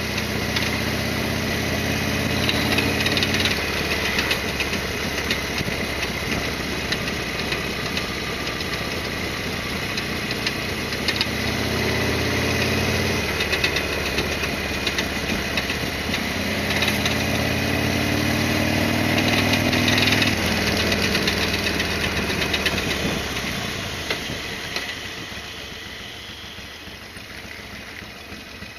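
Harley-Davidson XL1200R Sportster's air-cooled V-twin engine running under way, its pitch rising several times as it pulls through the revs and dropping back between, then quieter and lower near the end.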